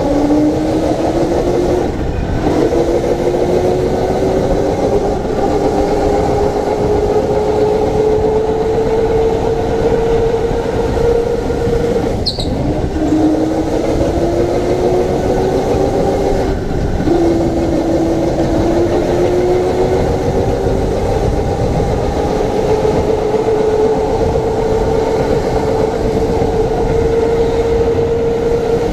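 Electric go-kart's motor whining, its pitch climbing steadily as the kart gains speed and dropping sharply twice, about twelve and seventeen seconds in, as it slows for corners, over a steady rumble from the ride.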